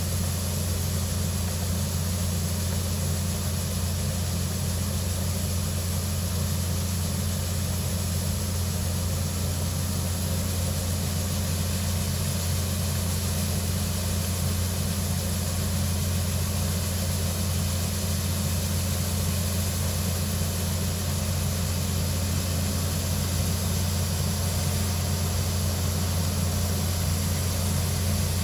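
Large engine running steadily at one constant speed, a deep even drone with no changes in pitch or level.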